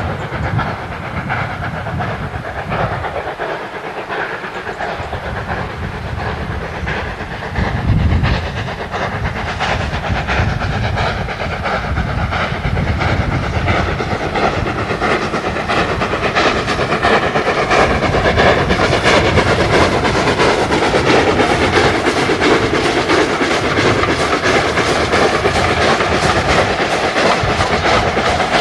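LNER A3 Pacific No. 4472 Flying Scotsman hauling a passenger train, its steam exhaust beating in a quick, even rhythm that grows louder as the locomotive draws near.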